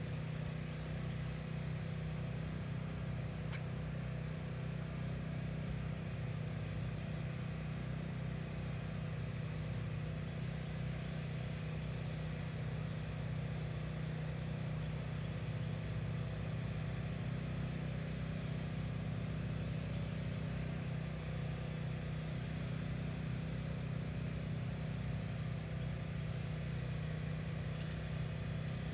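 A steady low mechanical hum like a motor or engine running, unchanging in pitch and level. A few brief faint high hisses sound around 3, 18 and 28 seconds in.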